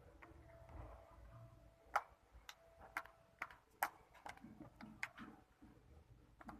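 Toothpaste slime being squished and poked for ASMR, giving faint, sharp, uneven clicking pops, about eight of them from two seconds in.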